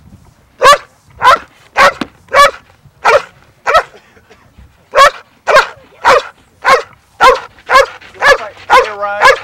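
Protection-sport dog barking over and over, about two sharp barks a second, with a short break about four seconds in.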